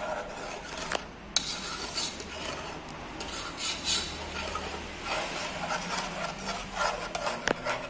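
Spoon stirring thick oat porridge in a metal saucepan: a continuous rasping scrape against the pot, with a few sharp clicks of the spoon on the pot.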